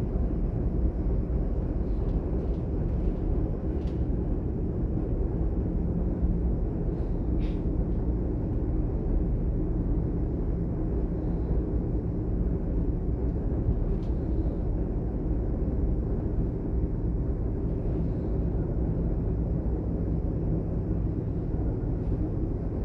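DB Class 422 electric multiple unit running between stations, heard from inside the train: a steady low rumble of wheels on rail and running gear, with a few faint clicks.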